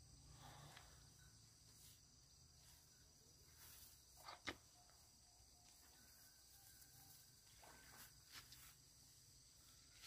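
Near silence: faint outdoor ambience with a steady high-pitched hum and a few soft clicks near the middle.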